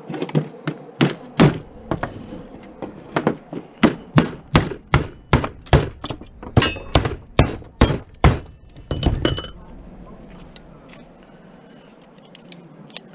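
About twenty sharp hammer-like blows, quickening to about three a second, striking an electronics casing to break it open. Near the end a short clattering, ringing burst, like pieces breaking loose, then the blows stop.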